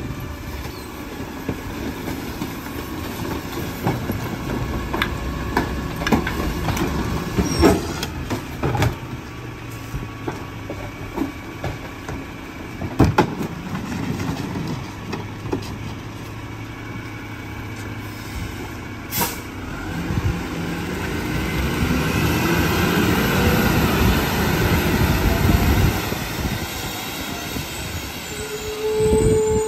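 McNeilus rear-loader garbage truck's diesel engine idling while trash cans are tipped into the hopper, with several sharp clanks of cans against the hopper. About two-thirds through, the engine revs up and its pitch rises, growing louder.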